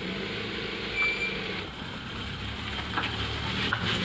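A motor vehicle engine running steadily, with one short high beep about a second in.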